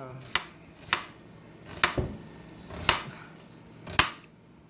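Kitchen knife chopping down onto a cutting board: about five single, sharp chops, roughly a second apart, while preparing vegetables.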